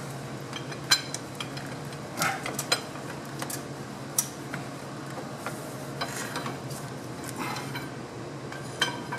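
Hand tools, a large socket and breaker bar, clinking and tapping against metal in irregular, scattered knocks while being fitted onto a cylinder-head bolt. A steady low hum runs underneath.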